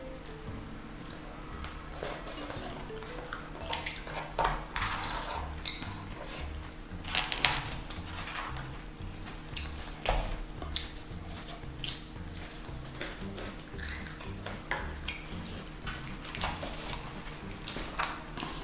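Cutlery clicking and scraping against a plate while eating, in irregular short taps throughout.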